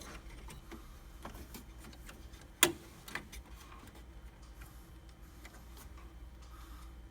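Scattered light clicks and taps of a metal plate being fitted back onto an M3370 printer, with one sharp knock about two and a half seconds in.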